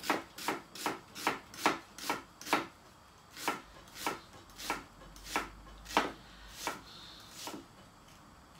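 Knife slicing an onion into half-moon slices on a wooden chopping board: a steady run of knife strokes knocking on the board, about two or three a second, spacing out and stopping near the end.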